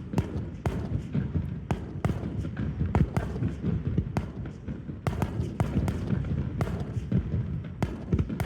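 Fireworks going off: an irregular run of sharp bangs and pops, several a second, over a continuous low rumble.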